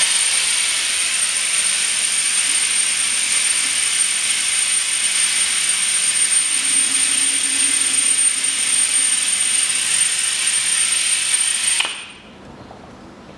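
A suction pump drawing power-steering fluid out of the reservoir: a loud, steady hiss with a thin high whistle that starts abruptly and cuts off about twelve seconds in.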